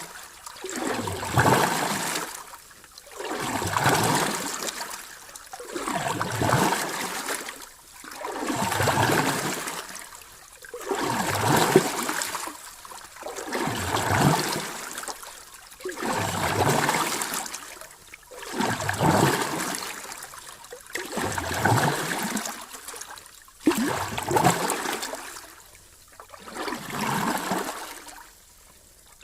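Sea waves washing in: a rushing surge of water that swells and fades in a steady rhythm, about once every two and a half seconds.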